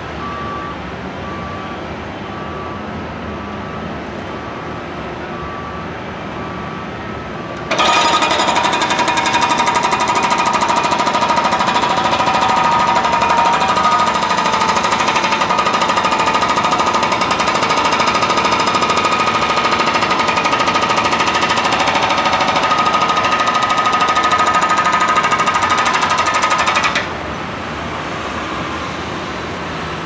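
Hydraulic breaker hammer on a Caterpillar 420E backhoe loader pounding street pavement. It gives a rapid, continuous hammering that starts abruptly about eight seconds in and stops suddenly about twenty seconds later, over steady machinery noise.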